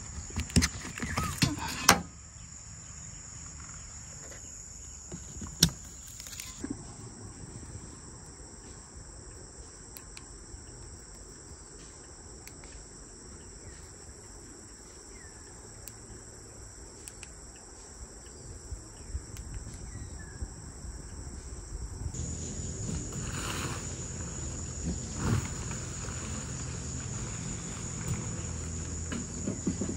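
Steady high-pitched insect chorus. Scattered sharp clicks and knocks come in the first two seconds, once near six seconds, and more often in the last third.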